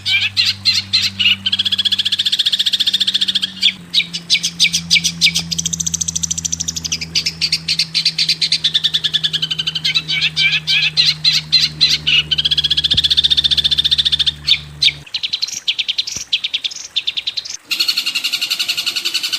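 Recorded songbird calls used as a masteran training track: fast chattering trills alternating with runs of sharp, high repeated notes. A steady low hum sits underneath until about three-quarters of the way through, and near the end the calls change to a denser, continuous trill.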